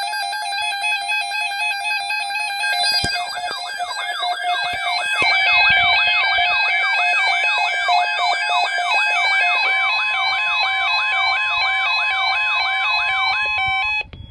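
Weather alert radio receivers sounding their alarms together for an incoming severe thunderstorm watch. A harsh electronic alarm tone that steps between two pitches is joined about three seconds in by a siren sweep rising and falling roughly three times a second, and a steady tone comes in near the end. Everything cuts off abruptly.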